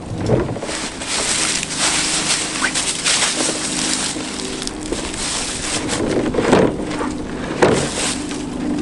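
Heavy oak firewood rounds knocking and thudding as they are pushed and shifted in a utility vehicle's cargo bed, with a loud knock just after the start and a few more later. A steady rustling hiss runs under them.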